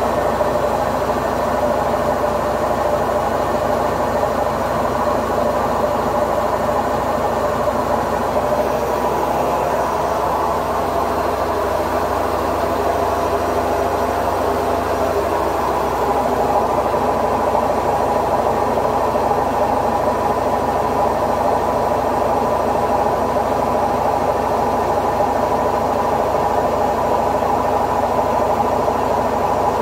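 Haier HW60-10636A washing machine on its spin cycle: a steady hum and whine of motor and spinning drum, with the low tone shifting between about 8 and 16 seconds in and the sound a little louder after that.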